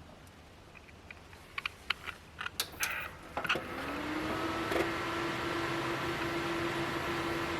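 A few clicks and knocks, then a computer cooling fan spins up, its hum rising in pitch and settling into a steady tone over a steady rush of air.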